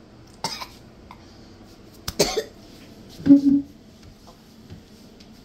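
A boy coughing from the burn of a Carolina Reaper pepper he has just eaten: three coughs spread over about three seconds, the last one the loudest, with voice in it.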